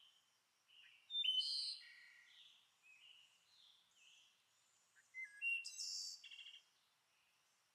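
Small birds chirping and singing: a string of short, high calls and trills, with the loudest clusters about a second in and again around five to six seconds in.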